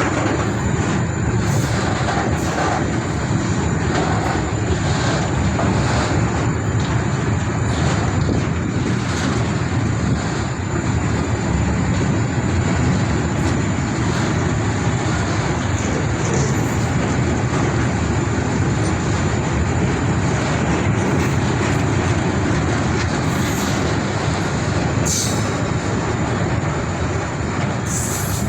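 Goods train passing, its wagons rolling steadily along the rails in a continuous rumble, with a few brief sharp clicks and squeaks from the wheels here and there.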